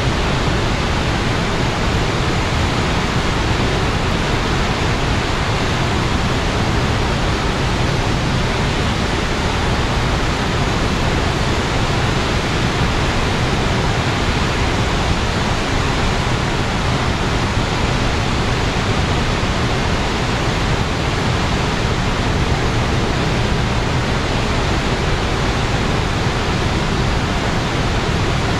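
Water released from Takizawa Dam pouring and crashing down in a loud, steady, unbroken rush: a high-volume discharge from the dam.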